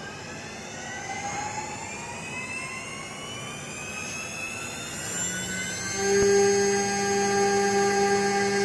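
CNC wood router spindle motor spinning up after start, a whine that rises steadily in pitch, then levels off about six seconds in to a louder, steady whine at running speed.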